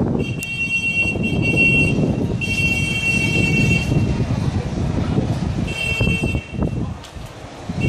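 Steady low rumbling outdoor noise, with a high, buzzy horn-like tone sounding three times: a blast of about two seconds, another of about a second and a half, then a short one a few seconds later.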